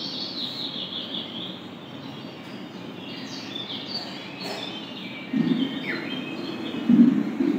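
Birdsong from a nature video played through a flat-screen TV's built-in speakers: repeated high chirps and falling trills over a steady outdoor hiss. Two brief low bumps come about five and a half and seven seconds in.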